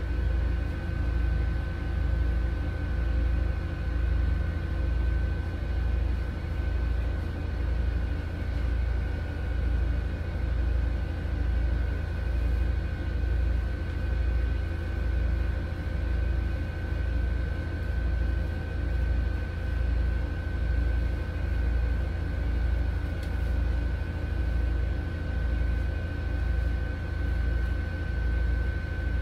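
Steady mechanical hum, with a low throb pulsing evenly a little more than once a second and a thin steady whine above it.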